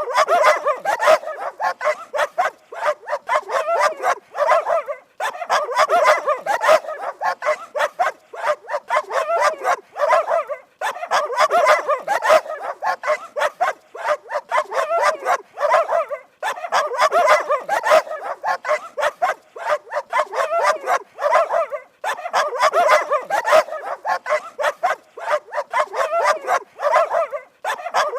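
Dogs barking rapidly and continuously, in runs of several seconds broken by brief pauses.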